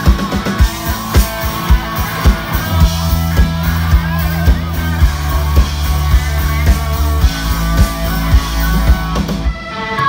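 Live rock band playing loud over a PA: electric guitars and bass over a steady drum beat of about two hits a second. Just before the end the drums and guitars stop, leaving held electric organ chords.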